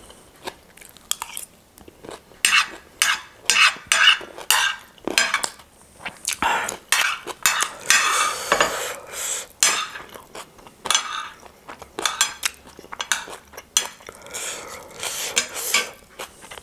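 Metal spoon and fork scraping and clinking against a plate in quick, irregular strokes, gathering up chatpate.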